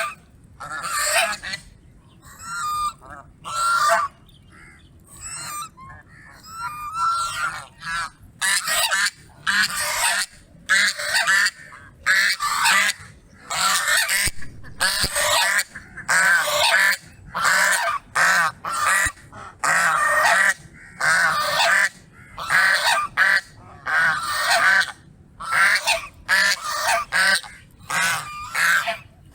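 Goose honking over and over in short, separate calls, spaced out at first and then coming in quick succession.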